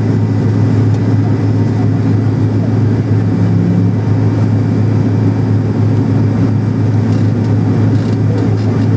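Steady low drone inside the cabin of a McDonnell Douglas MD-87, from its two rear-mounted Pratt & Whitney JT8D turbofans running at taxi power.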